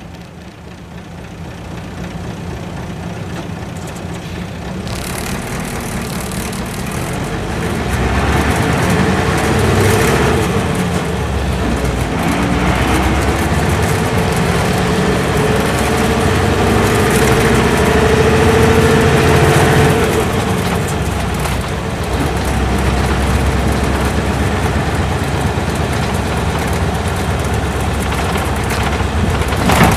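V8 diesel engine of an Isuzu Cubic city bus (KC-LV380L), heard from inside the bus. It starts quiet, then grows steadily louder over the first several seconds as the bus pulls away and accelerates. It is loudest at about ten to twenty seconds in, dips briefly a little after twenty seconds, then runs steadily at speed.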